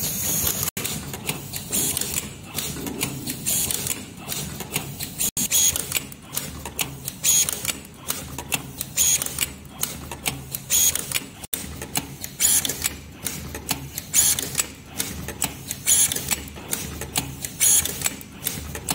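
Automatic LED soldering and wire-twisting machine running: a continuous mechanical clatter with sharp clacks at roughly one a second, over a low hum.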